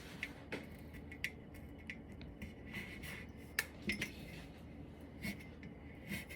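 Scattered light clinks and knocks of hard household items, such as glassware and dishes, being handled and set down. There are about a dozen irregular strikes, a few with a short ring, the loudest a pair about three and a half to four seconds in.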